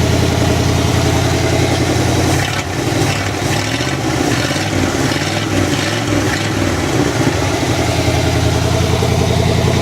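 1958 Chevrolet Apache pickup's engine running steadily, loud through an exhaust missing its cherry bomb muffler section. Its speed shifts a little for a few seconds in the middle. Freshly cleaned and regapped spark plugs have it running smoothly.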